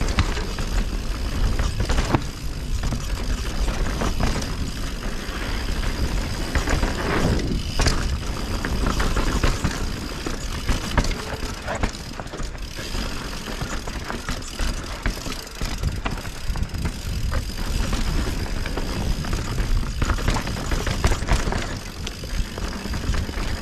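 Mountain bike descending a rocky, rooty dirt trail: tyres rolling on dirt and the bike rattling, with repeated sharp knocks as it hits rocks and roots. A steady low rumble of wind on the camera microphone runs underneath.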